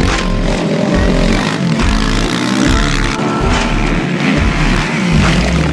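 Dirt bike engine revving up and down over a music track with a steady bass beat.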